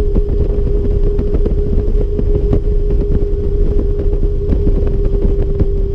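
Harley-Davidson Ultra Limited touring motorcycle riding on the road, with wind and engine rumble and a steady singing whine from the front end, which the rider takes for worn front wheel bearings.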